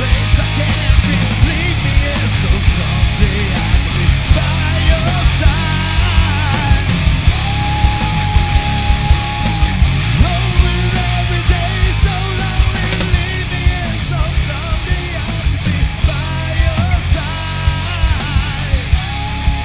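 Rock band playing live: a drum kit with steady, hard-hit beats and cymbals, under electric guitars and bass.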